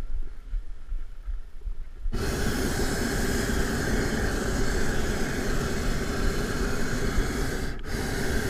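Hot-air balloon's propane burner firing: a loud, steady roar that starts suddenly about two seconds in, cuts out for an instant near the end and fires again.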